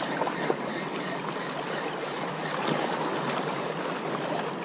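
Seawater washing and trickling among shallow rocks at the shoreline: a steady wash with small splashes and ticks.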